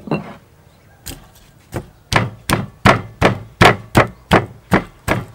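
Stone pestle pounding in a granite mortar: a few slow strikes at first, then a steady beat of about three strikes a second from about two seconds in.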